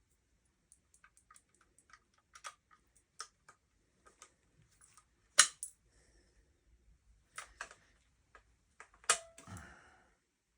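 Scattered light clicks and clacks of shotgun parts being handled and worked during takedown, with a sharp louder clack about five seconds in and another about nine seconds in, the second followed by a brief metallic ring.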